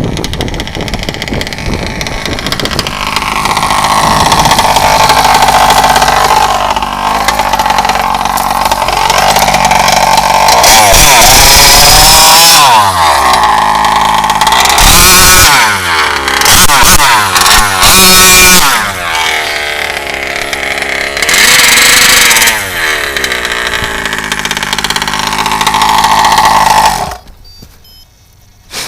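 Large petrol two-stroke engine of an HPI Baja RC car (RCMAX GT90) revving hard and easing off again and again, its pitch sweeping up and down with several loud full-throttle surges. The engine sound stops abruptly near the end.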